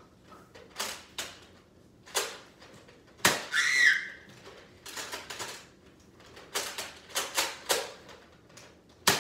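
Nerf blasters firing and foam darts hitting, heard as about a dozen sharp, irregularly spaced clicks and knocks, with one short high squeal about three and a half seconds in.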